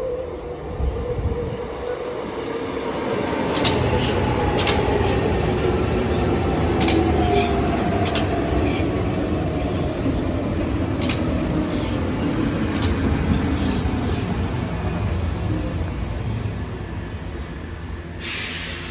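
Electric train running through the station, swelling in loudness and then easing off. Its motor whine falls slowly in pitch, and a string of sharp clicks comes from the wheels over rail joints. A short burst of hiss comes near the end.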